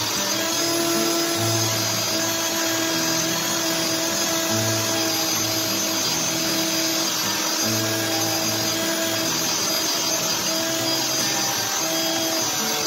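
Milwaukee M12 cordless drill running steadily, spinning a cloth buffing wheel against the cast-iron parts of a Stanley 71 1/2 router plane to polish them: a steady motor whine. Background music with changing bass notes runs underneath.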